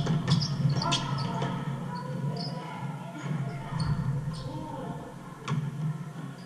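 Basketball bouncing on a hardwood gym floor and sneakers squeaking as players run a pickup game, with players' voices in the hall. A few sharp bounces stand out, the loudest near the end.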